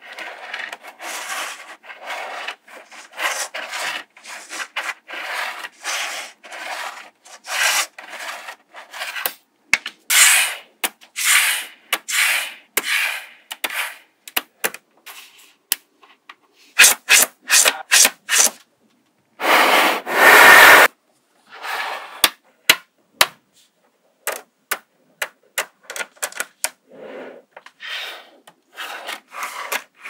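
Small magnetic balls clicking and rubbing against one another as strips of them are laid and pressed against a grid of the balls on a table. Irregular short scratchy rattles, with a quick run of sharp clicks and a longer, louder rattle a little past the middle.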